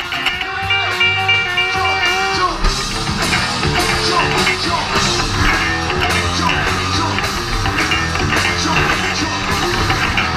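Live rock band playing, with electric guitar out front over bass and drums; the guitar holds and bends notes in the first couple of seconds.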